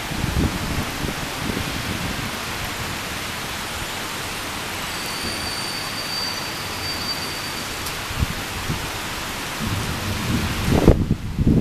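Heavy thunderstorm rain pouring down, a steady hiss, with low rumbles of thunder at the start and again, louder, near the end, where the rain hiss suddenly drops away.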